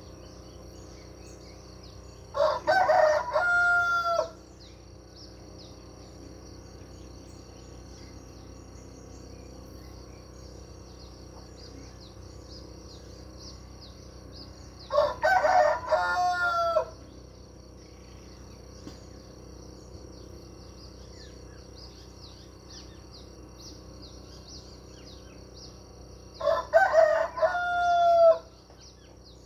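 A rooster crowing three times, about twelve seconds apart; each crow lasts about two seconds and ends on a drawn-out held note. Underneath, a steady high-pitched background buzz carries scattered small bird chirps.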